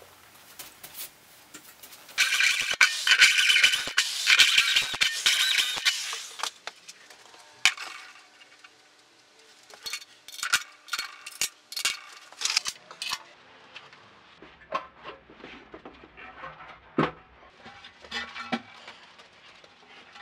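Steel fire-pit parts being handled and fitted together. A loud, harsh, grating metal sound lasts about four seconds, followed by a run of metallic clanks and clinks.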